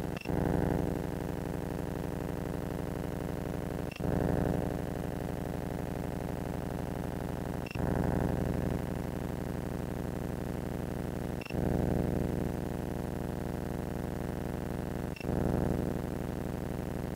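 Steady electrical hum with many overtones from the faulty audio of digital recording binoculars; no owl is heard. A sharp click comes about every four seconds, five times in all, and each is followed by a brief louder swell.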